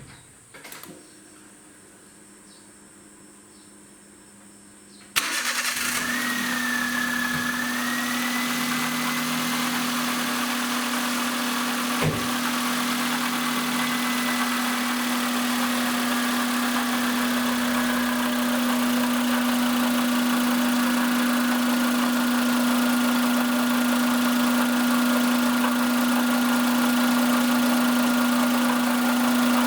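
Suzuki HA23V Alto Van engine starting about five seconds in, then idling steadily with a low hum and a high whine that wavers at first and then holds steady. The engine has an abnormal noise that is being tracked down. There is one knock about twelve seconds in.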